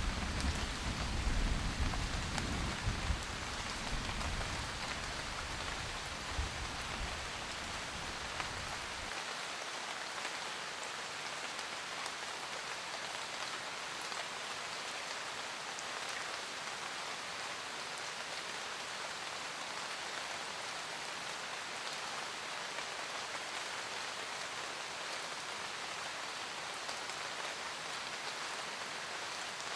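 Steady rain falling, an even patter throughout. A low thunder rumble dies away over the first several seconds and ends abruptly about nine seconds in.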